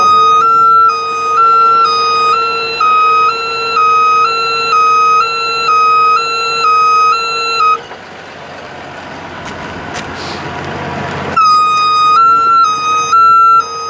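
Two-tone warning alarm on an Altec AT40MH bucket truck, sounding as the outriggers are lowered. It alternates between two close pitches about twice a second over a steady hum. It stops about 8 seconds in, leaving a softer rising noise, and starts again about three and a half seconds later.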